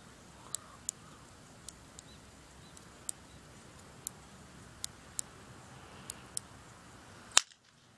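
Tightly twisted rubber balloon giving small scattered clicks and creaks as it is wound, then one sharp snap near the end as the pressurised bubble bursts.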